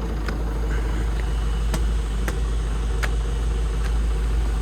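Hydraulic excavator's diesel engine running steadily, with a few light clicks spread through it.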